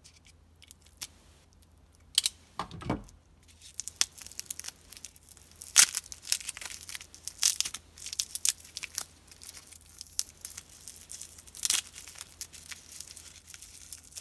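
Tape being picked at, peeled and torn off a wrapped, packed piece, with plastic wrapping crinkling and crackling. A few isolated clicks at first; from about two seconds in, the crackling and tearing come thick and irregular.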